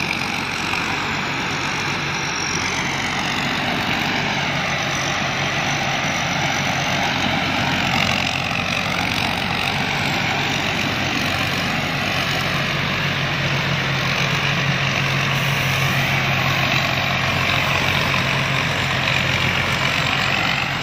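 Rice combine harvester running steadily, its engine hum under the dense noise of the harvesting and threshing machinery.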